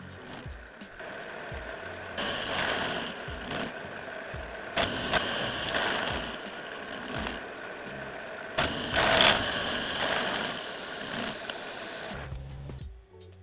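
A CNC milling machine cutting a metal block with a large high-speed steel end mill: a steady cutting whine with chips rattling and occasional sharp clicks. The cut gets louder and hissier for about three seconds in the second half, then falls away just before the end.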